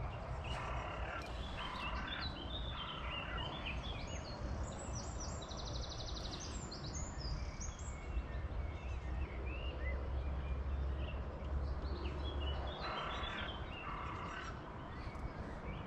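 Several small songbirds singing and chirping, with rapid trills near the start and again near the end, over a steady low rumble.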